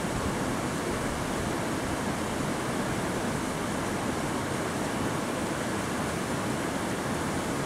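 Steady rush of a fast-flowing mountain creek.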